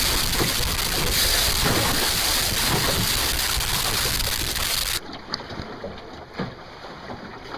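Wind buffeting the microphone and water rushing past the hull of a small sailboat under sail, a loud steady hiss. About five seconds in it drops abruptly to quieter water splashing with a few light knocks.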